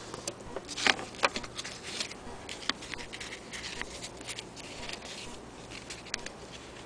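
Irregular crinkling and rustling with sharp clicks as a stiff sheet of material is handled and flexed in the hand; the loudest crackle comes about a second in, and it thins out in the last couple of seconds.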